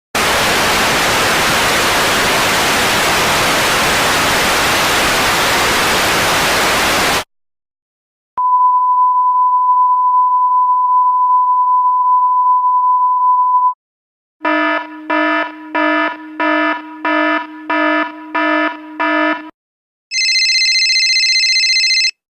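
A string of electronic sound effects: about seven seconds of loud white-noise hiss like static that cuts off sharply, then a steady high beep tone held about five seconds. Next comes a buzzer sounding about eight short pulses, and near the end a brief high electronic tone.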